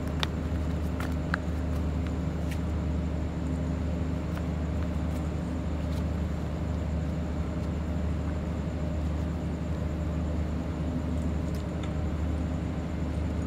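Steady low mechanical hum with several constant tones, like engines or machinery running, with a few faint clicks scattered through it.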